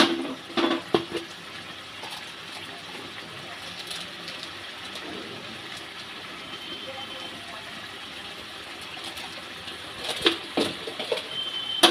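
Brinjal curry gravy simmering in an aluminium kadai: a steady bubbling, sizzling hiss. A few sharp knocks come near the start and again about ten seconds in.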